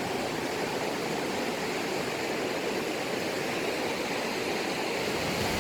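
Rushing mountain river water, a steady even roar.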